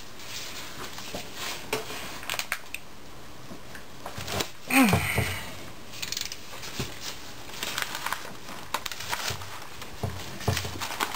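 Hand ratchet and socket working a bolt on a 4L80E transmission: scattered small metal clicks and scrapes, with one louder falling-pitched sound about five seconds in.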